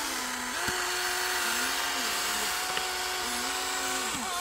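Small electric motors of a toy remote-control excavator whining steadily as the arm lifts and the bucket scoops dirt. The pitch steps up shortly after the start and dips and recovers a couple of times as the load changes.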